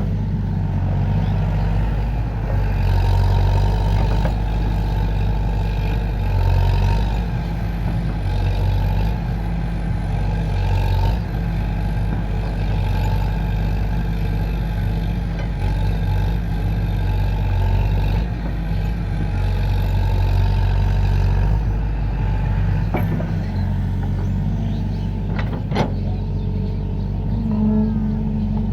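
Excavator's diesel engine running steadily, swelling in level several times as it works, with two sharp metallic knocks near the end.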